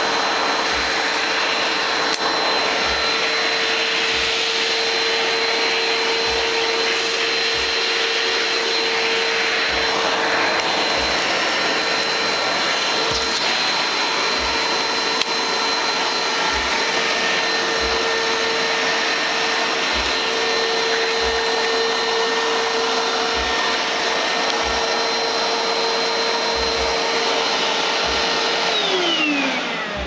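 Hoover Platinum Collection Cyclonic bagless upright vacuum cleaner running with a steady motor whine. Near the end it is switched off, and the whine falls in pitch as the motor winds down.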